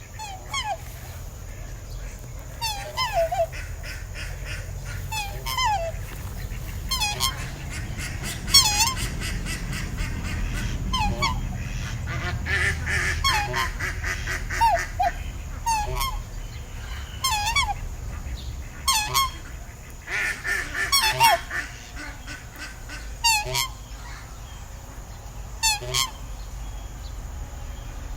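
Swans calling: a run of short honking calls, one every second or two, several birds overlapping in places, over a low steady rumble.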